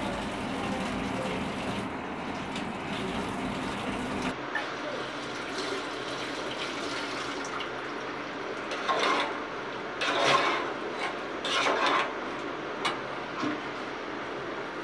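Water running from a kitchen tap into a stainless steel sink during washing up. It is a steady rush whose deeper part drops away about four seconds in, followed by three short, louder bursts of noise later on.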